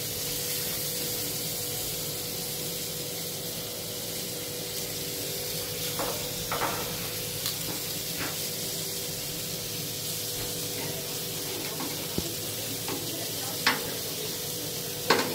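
Skewers and portobello mushrooms sizzling on a gas grill, a steady hiss, with a few light clicks of metal tongs.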